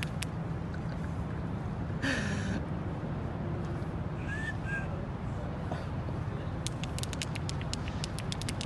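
Outdoor city ambience: a steady low rumble, with a short louder noise about two seconds in, a brief chirp, and a run of quick sharp clicks near the end.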